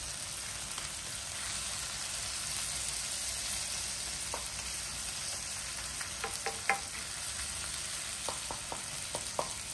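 Ground chili, shallot and garlic paste sizzling steadily in oil in a nonstick wok as a wooden spatula stirs it, with a few sharp taps of the spatula against the pan, mostly past the middle and toward the end. The paste is being cooked down slowly until it gives its oil back out.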